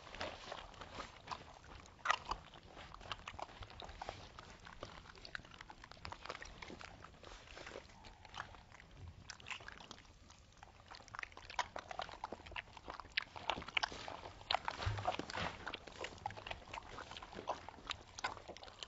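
Rottweiler–Australian Shepherd mix puppies licking and chewing: many small irregular wet clicks and smacks, busier in the last several seconds.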